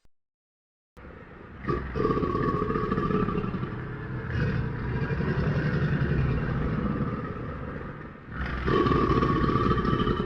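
Pyroraptor creature sound effect, made from mixed animal recordings: a long rasping growl starting about a second in, then a second growl near the end.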